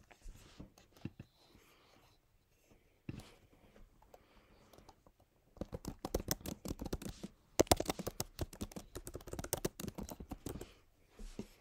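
Typing on a computer keyboard: a fast run of key clicks lasting about five seconds, after some softer rustling.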